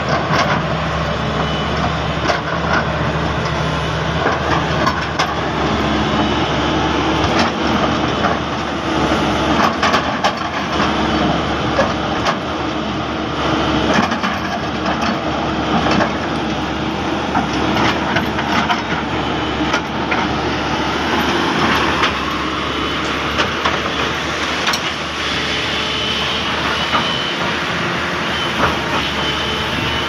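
Crawler excavator's diesel engine running steadily under load while its bucket digs and scrapes through red soil and broken rock, with scattered knocks of stone.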